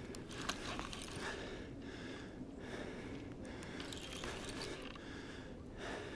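Spinning reel being cranked to bring in a hooked fish, its gears and handle giving faint, irregular clicking and scraping.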